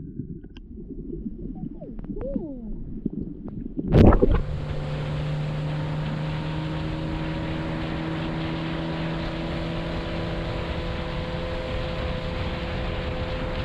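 Muffled water noise from underwater, then a loud splash about four seconds in. After it, a boat motor runs steadily with an even hum.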